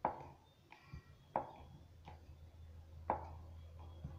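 Wooden rolling pin knocking and tapping on a round wooden rolling board as a small disc of dough is rolled out: a few sharp wooden knocks, three louder than the rest, with lighter taps between.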